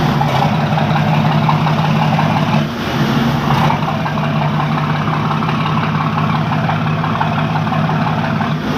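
A ship's diesel engine running steadily at low revs with a deep, even hum, dipping briefly a little under three seconds in.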